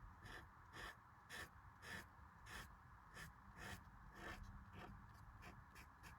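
Faint, short scratchy strokes of an acrylic paint marker's tip on the drawing surface, about two a second, coming quicker and lighter near the end.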